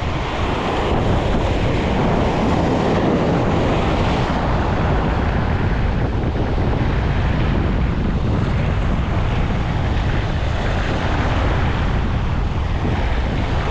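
Sea surf breaking and washing over shoreline rocks, with wind buffeting the microphone: a steady, even rush of noise.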